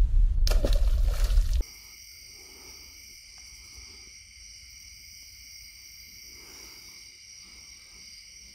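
Wind buffeting the microphone as a released fish is tossed and splashes into the water about half a second in. After a sudden cut, a steady, high-pitched chorus of night insects.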